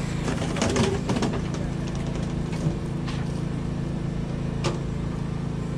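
Steady hum of an engine or motor running nearby, unchanging in pitch. A few light knocks come in the first second, and there is one sharp click later on.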